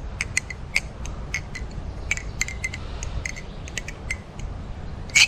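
MachineWise Sasori balisong being flipped, its handles and latch clicking against each other in quick, irregular metallic clicks, with a louder click near the end. The pivots are still dry and unoiled.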